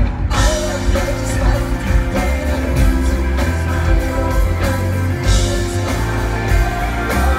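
Live rock band playing, with a steady beat and heavy bass under the guitar.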